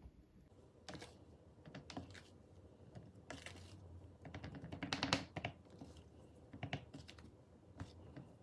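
Irregular light taps and clicks of hands working with kitchen things, with the busiest run of taps about five seconds in.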